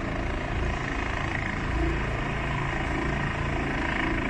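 Distant helicopter hovering, a steady rotor drone with a fast low chop.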